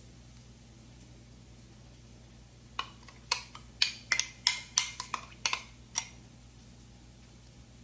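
A metal spoon clinking and scraping against a glass measuring cup as the last of the barbecue sauce is scraped out: about a dozen sharp clinks over some three seconds, starting about three seconds in.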